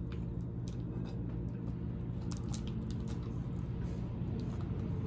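Boiled lobster being pulled apart by hand: scattered small clicks and crackles of shell with soft squishing of the meat, over a steady low hum.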